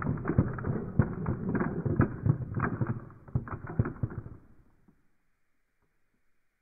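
Steel balls rolling along a Gravitrax plastic track and clacking into one another as they pile up in the collecting basin: a rolling rumble under many sharp clicks, thinning out and stopping about four to five seconds in.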